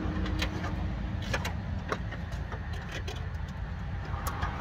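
Irregular light clicks and taps of a wiring loom and its plastic connectors being handled and fed through a van's door panel, over a steady low rumble.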